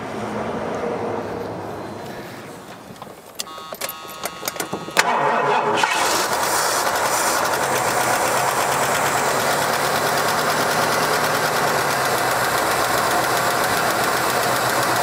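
1977 Lincoln Continental's V8 engine, long unstarted, cranking with a run of clicks and then catching about five seconds in and running steadily. It runs with a light lifter tick, which the crew puts down to oil not yet reaching everywhere after sitting nearly 40 years.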